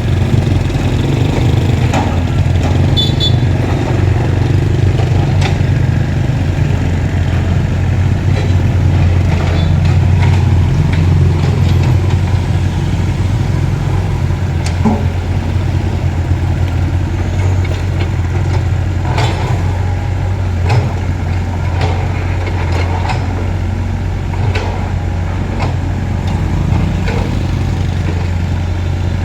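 Diesel engine of heavy construction machinery running steadily with a low hum, with scattered knocks and clanks from the machine working.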